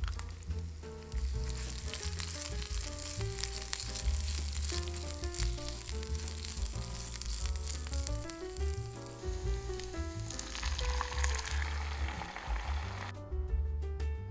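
Rice grains sizzling as they fry in oil in a nonstick saucepan, stirred with a silicone spatula; the sizzling cuts off near the end. Background music plays throughout.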